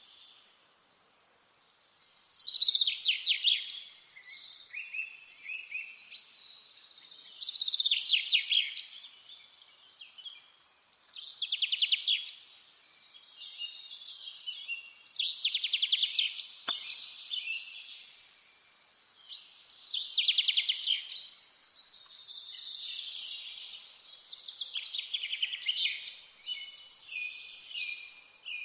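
A songbird singing short, rapid trilled phrases over and over, one phrase every four to five seconds, with a single click about two-thirds of the way through.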